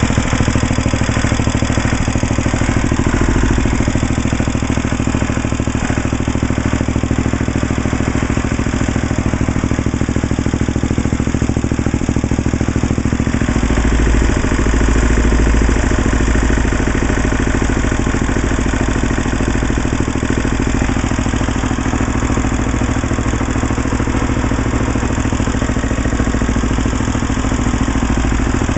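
Sears ST/16 garden tractor engine running steadily at idle, with a brief deeper swell about halfway through.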